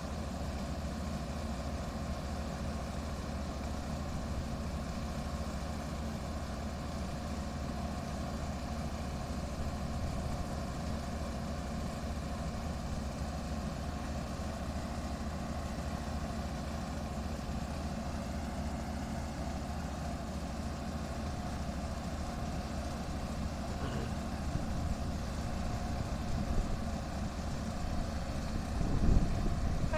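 CRF tomato harvester working in the field: a steady diesel engine drone with a steady machinery whine over it. A louder low rumble comes in near the end.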